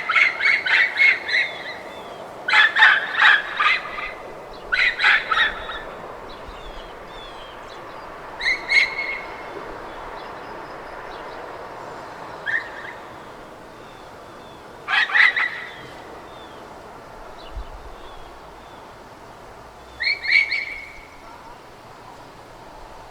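Dog barking in bouts of rapid barks, several barks in quick succession each time, the bouts coming every few seconds with longer gaps later on. Birds chirp faintly in the background.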